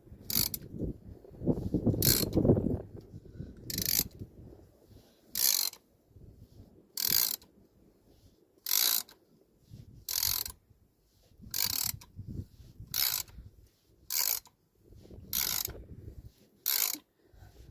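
Ratcheting brake caliper piston press being worked in repeated strokes, a short burst of ratchet clicks about every second and a half, as it pushes the rear caliper piston back into its bore.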